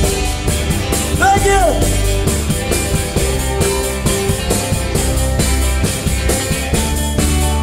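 Live rock and roll band playing an instrumental vamp on electric guitars, bass, drums and piano at a steady beat. A short high note rises and falls about a second in.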